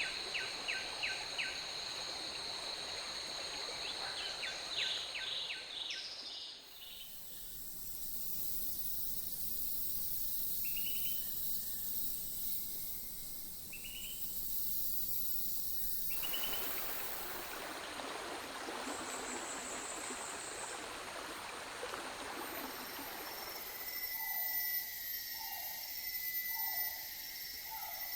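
A montage of tropical rainforest ambiences. It opens on a steady insect drone with repeated bird trills. About a third of the way in it cuts to a quieter bed with cicadas and a few bird chirps, then to a rocky jungle river with a low, even babble, and near the end to insect drone with repeated short bird calls.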